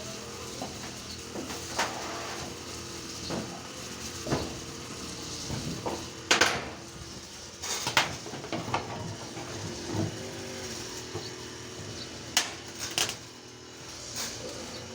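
Irregular knocks and metal clinks, a few seconds apart, over a steady machine hum.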